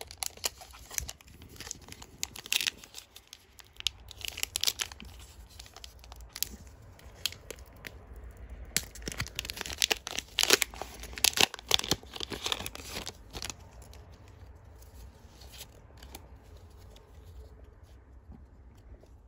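A foil booster pack wrapper being torn open and crinkled by hand, in bursts of sharp rips and crackles that are loudest about ten to thirteen seconds in. The crackling is fainter near the end.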